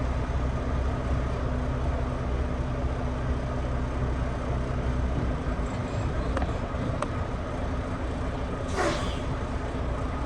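Semi truck's diesel engine idling, a steady low rumble heard from inside the cab that weakens about six seconds in, with a few faint clicks and a short hiss near the end.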